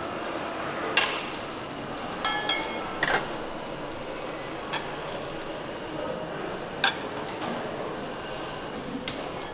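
A metal ladle clinking against a stockpot and ceramic ramen bowls as soup is ladled out: about six sharp clinks, one pair ringing briefly like a small bell a little over two seconds in, over a steady background hiss.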